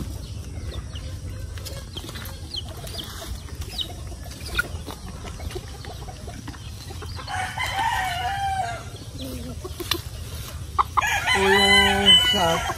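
Free-range chickens calling around the yard, with a rooster crowing: a first crow about halfway through and a louder, longer crow near the end.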